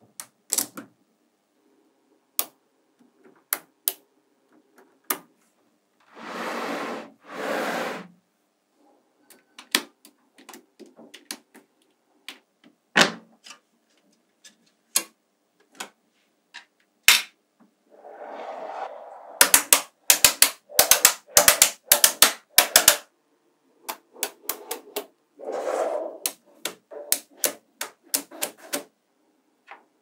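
Small neodymium magnetic balls clicking sharply as pieces snap together, some single clicks and a rapid run of clicks about two-thirds of the way in. A few longer stretches of rattling as the balls shift and rub against each other.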